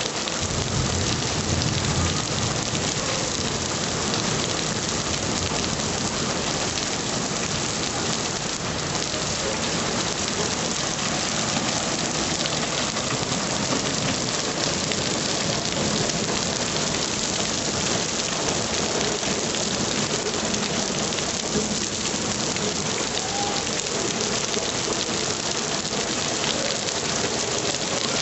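Heavy rain pouring steadily onto trees, grass and paving: a dense, even hiss of falling water.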